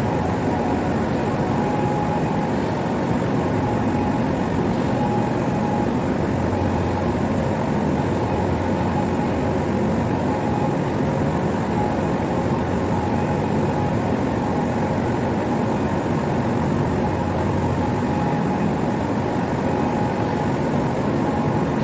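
Steady, unbroken machine noise with a faint steady whine, unchanging throughout.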